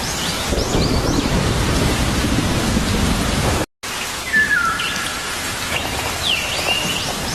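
Steady rain with a low rumble of thunder through the first half and birds chirping over it. The sound cuts out completely for a moment about halfway through, then the rain returns with a falling whistle and more chirps.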